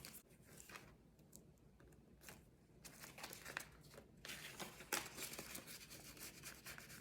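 Faint rustling and crinkling of paper bills being handled and slipped into a cash envelope, with scattered soft ticks and a sharper click about five seconds in.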